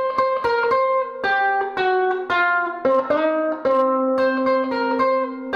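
Ukulele playing a riff of single plucked notes, about three to four notes a second.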